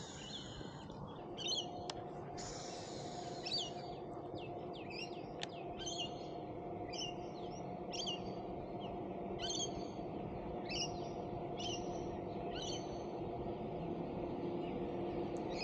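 A bird calling over and over, a short high call about once a second, over a faint steady hum.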